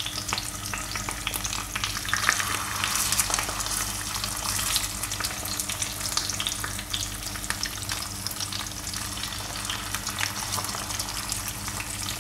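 Marinated karimeen (pearl spot fish) sizzling and crackling in hot coconut oil with curry leaves in a cast-iron skillet as the fish are laid into the pan one by one. The sizzle is loudest about two to three seconds in.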